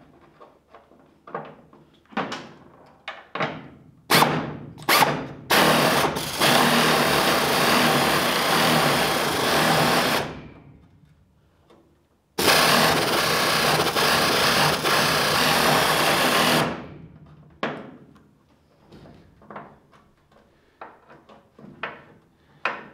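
Pneumatic air ratchet fired in a few short blips, then run in two long bursts of about four to five seconds each with a brief pause between, working on rusted bumper bolts. A few light clicks and taps follow near the end.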